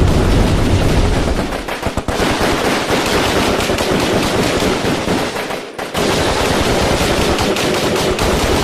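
Battle sound effect of dense, rapid automatic gunfire that runs on continuously. A deep rumble under it fades out in the first second and a half, and the firing briefly slackens about two seconds in and again just before six seconds.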